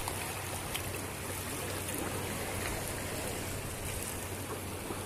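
Shallow seawater washing and trickling steadily over the shore.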